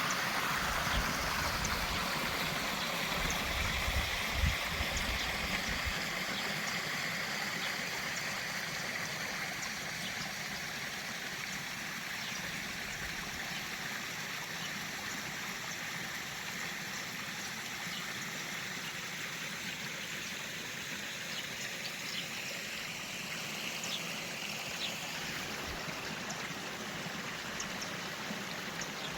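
Waterfalls rushing in a steady hiss, with a few brief, faint bird chirps above it. Some low thumps in the first few seconds.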